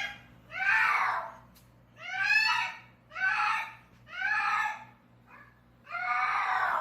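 A cat meowing loudly over and over, about once a second, each drawn-out call rising and then falling in pitch.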